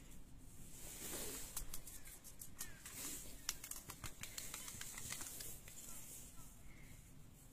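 Ragdoll cats' paws and claws scuffling and tapping on wooden deck tiles as they tussle: a run of light, irregular clicks over a faint hiss.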